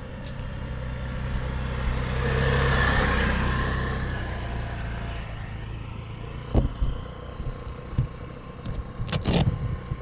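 A motor passes close by, its hum swelling to a peak about three seconds in and then fading. Knocks and scrapes from the camera being handled follow in the second half, with a cluster of clicks near the end.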